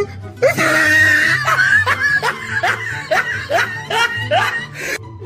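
Laughter, a run of short rising 'ha' sounds about two a second, over background music with a steady bass line; the laughing stops shortly before the end.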